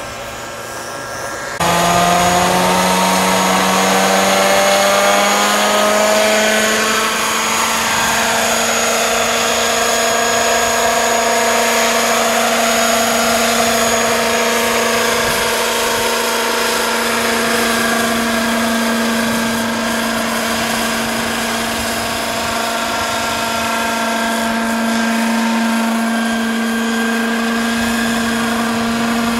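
Radio-controlled scale Eurocopter EC-120B model helicopter running in flight, its engine and rotors making a steady high whine. The sound jumps louder about a second and a half in, and its pitch climbs over the next few seconds, then holds.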